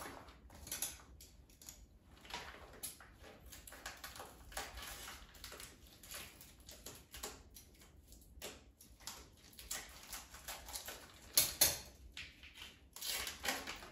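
Plastic wrapping of frozen fish fillets rustling and crinkling in short, irregular crackles as it is peeled open by hand, with a couple of louder crackles near the end.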